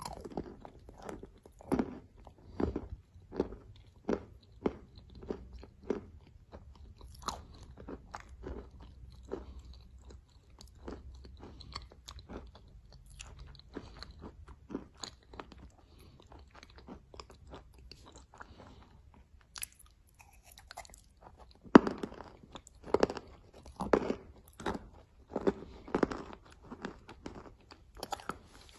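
A person chewing and crunching mouthfuls of thick clay-and-chalk porridge, with chews coming about one or two a second. The chewing eases off for a stretch in the middle and comes back louder and crunchier near the end.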